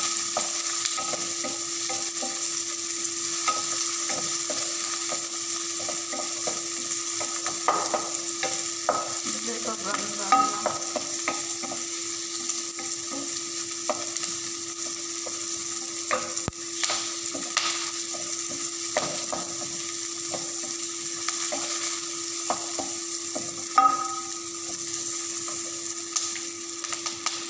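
Garlic and onion frying in hot oil in a pan, sizzling steadily while a utensil stirs and scrapes them with irregular clicks; the onion is browning. A steady low hum runs underneath.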